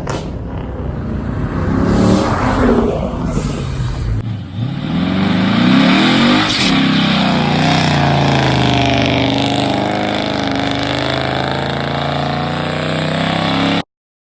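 Car engines revving in two spliced clips. In the second clip one engine revs up and back down about six seconds in, then runs steadily until the sound cuts off suddenly near the end.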